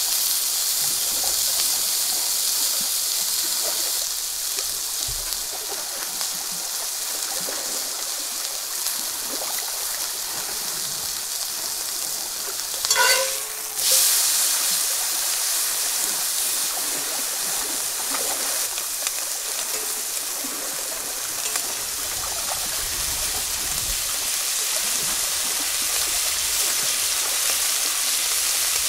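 Ribeye steak sizzling in a hot cast-iron skillet: a steady, high hiss of meat and fat frying. About halfway through the sizzle breaks off briefly and comes back louder.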